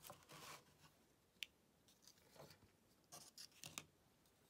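Faint handling sounds of small plastic model-kit parts being taken from a cardboard box and laid on a tabletop: soft rubbing and rustling, with one light click about a second and a half in.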